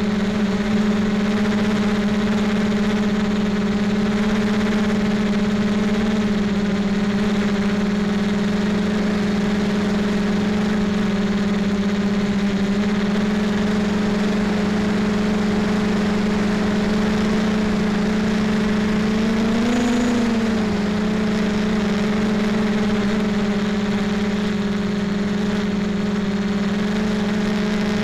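Motor and propeller of a camera-carrying model aircraft, a steady hum that rises briefly in pitch and drops back about two-thirds of the way through.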